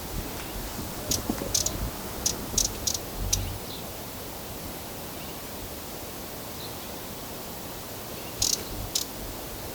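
Broad-billed hummingbird giving short, high chip calls: a quick run of about six in the first few seconds, then two more near the end, over a steady background hiss.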